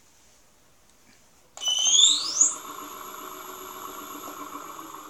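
Electric motor of a converted Babetta 210 moped engine spinning up with a fast rising whine, loudest as it speeds up, then running steadily with a high whine over a buzzing hum.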